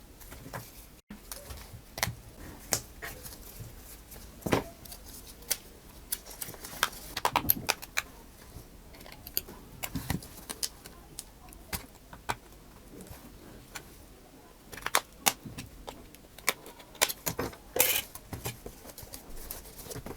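Irregular light clicks and taps of small tools and smartphone parts being handled while a phone is taken apart.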